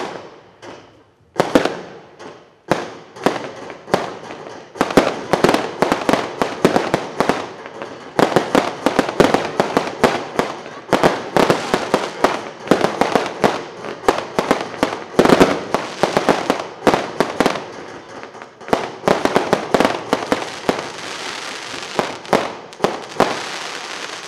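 Fireworks firing and bursting overhead. A few separate bangs come first, then a dense, rapid barrage of bangs from about five seconds in. Near the end the bangs give way to a steadier crackle before the sound cuts off.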